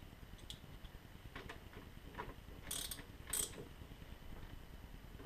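Light metallic taps and clicks from the hands working a metal lathe's chuck, with two sharper clicks a little under a second apart near the middle.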